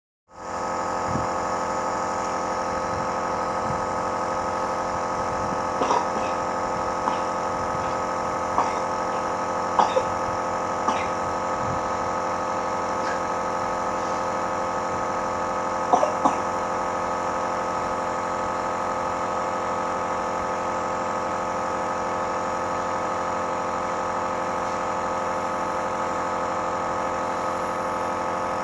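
Small electric medical compressor pump of the kind used to treat a child's cough and phlegm, running with a steady buzzing hum. A few brief, sharper sounds rise over it, mostly around the middle.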